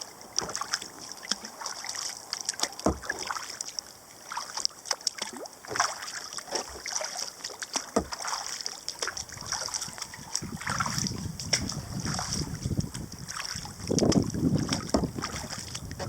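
Kayak paddle strokes: the blades dipping and splashing with drips and small knocks, in an uneven run of short splashes. From about two-thirds of the way in, wind buffets the microphone with a low rumble.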